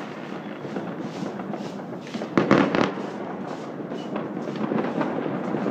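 Fireworks going off at a distance: a continuous crackle of many small reports, with a cluster of louder bangs about two and a half seconds in.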